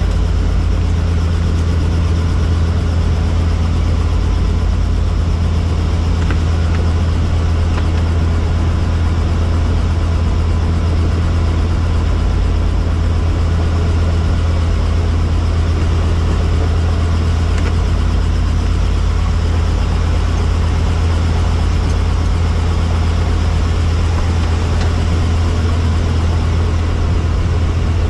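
Helicopter running steadily, a continuous low drone of rotor and engine that holds unchanged throughout.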